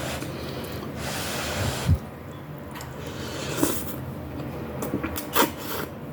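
Close-up eating sounds from a meal of miswa noodles with sardines. About a second in there is a long, noisy intake of air, then a low thump. After that come several sharp mouth clicks, the loudest one just before the end.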